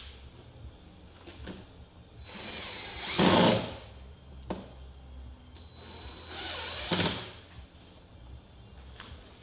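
Cordless impact driver running twice, driving screws into a wooden camper wall board: a run of about a second and a half starting about two seconds in, and a shorter one about six seconds in, each loudest near its end. A few small clicks of handling come between.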